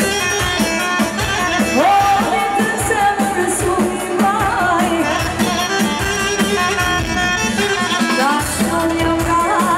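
A woman singing live into a microphone, her voice wavering and ornamented, over amplified band accompaniment with a regular drum beat.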